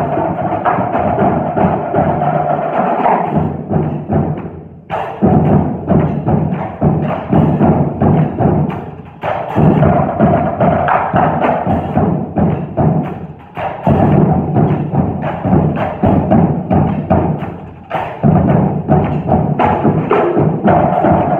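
High school drum line of marching drums with a drum kit playing a cadence: fast, dense drumming in phrases that drop away briefly about every four to five seconds.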